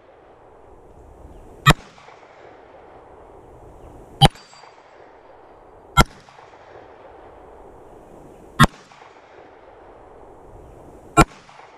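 Glock 19 Gen 4 pistol firing 9mm rounds: five single shots spaced about two seconds apart, each trailing a short echo.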